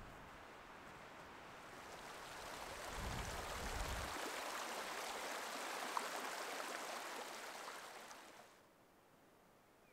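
Small mountain stream splashing and trickling over rock slabs and boulders. It swells in about two seconds in and fades out about eight and a half seconds in. A short low rumble of wind on the microphone comes around three seconds in.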